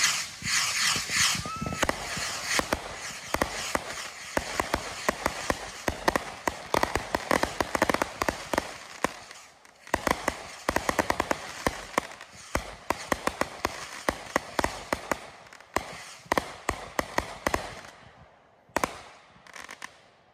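A stand of 81 sky pattern rockets firing in quick succession: constant hissing launches with many sharp pops and cracks. There is a short lull about ten seconds in, and near the end the volley dies away with a last couple of pops.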